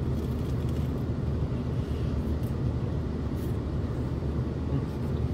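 Steady low rumble of a parked car's idling engine, heard from inside the cabin, with a few faint mouth sounds of chewing.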